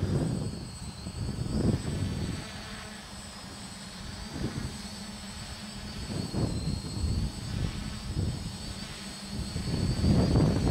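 Quadcopter motors and propellers whining in flight, the high pitch wavering as the throttle changes, over uneven low rumbling that swells near the end.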